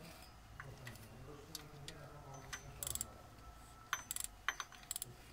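Ratchet wrench clicking in short quick runs, with sharp metallic tool clinks, as a bolt is turned by hand on a Peugeot 207 1.4 petrol engine during a timing-belt change. The clicks bunch up in the second half.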